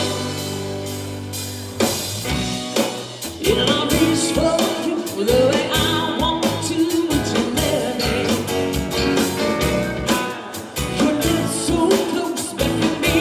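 Live country band playing with electric guitars, bass, keyboards and drum kit. A held chord fades over the first two seconds, then the drums come back in and lead singing starts over the band about three seconds in.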